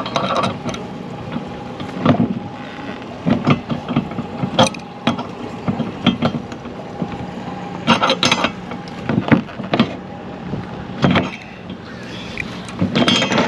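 Irregular metallic clinks and knocks of a stainless anchor swivel, shackle and chain being worked and tightened by hand with tools, over a faint steady hum.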